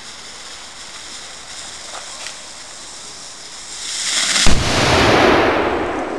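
Homemade hakownica (black-powder hook gun) being fired: the priming fizzes and hisses at the touch hole, swelling, then about four and a half seconds in the charge goes off with a loud boom that rolls away over the next couple of seconds.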